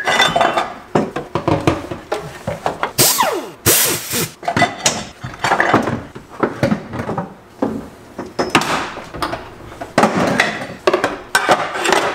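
A tool scraping and abrading the bare sheet metal of a BMW E36 body in short, irregular strokes, cleaning off paint and seam sealer where a roll-cage base plate will be welded.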